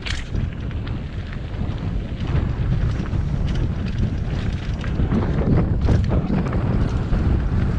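Mountain bike descending a dirt trail, heard through a helmet-mounted camera: wind buffeting the microphone and a steady rumble of tyres over the ground, with scattered clicks and rattles from the bike over bumps and a sharp clack right at the start.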